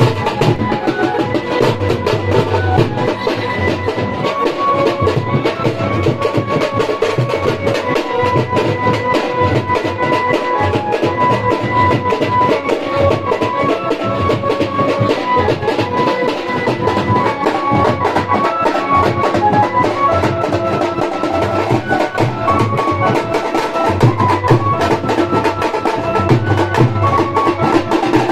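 Festival drumming: barrel drums slung from shoulder straps, beaten in a fast, dense rhythm, with a melody line held over them.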